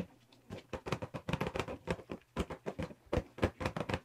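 BlendJet portable blender, a plastic jar with a plastic lid and base, being rolled back and forth under the hands on a granite countertop. It gives rapid, irregular clicks and knocks, several a second.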